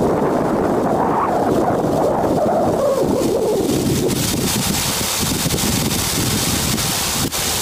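Steady churning noise of sand and gravel processing machinery running, with wind on the microphone. About four seconds in, the sound turns thinner and more hissy.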